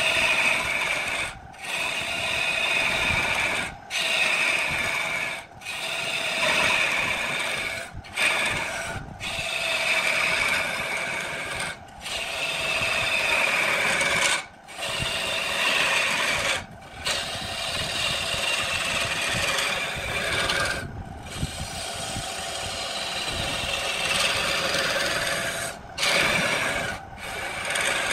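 A turning gouge cutting into spinning wood on a lathe: a steady shaving, scraping sound as the chips peel off, broken by short gaps every couple of seconds where the tool comes off the wood.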